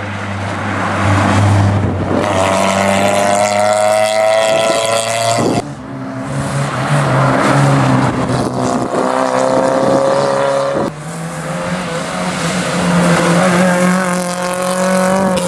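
Rally cars racing past one after another at full throttle, each engine climbing in pitch and then dropping sharply at each gear change.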